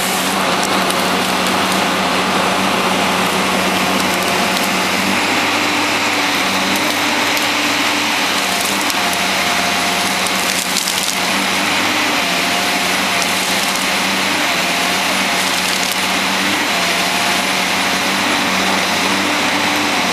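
Cat 550 wheeled harvester running hard, its diesel engine and hydraulics working the dangle processing head, with wood cracking and splintering as the head grips and feeds a tree stem. Steady machine noise throughout, with a hydraulic whine that comes and goes.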